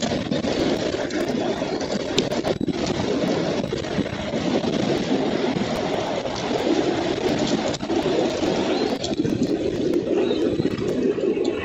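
Steady wind rumble on an outdoor nest-camera microphone, with scattered short clicks and rustles of nest straw as an adult bald eagle shifts over its eaglets.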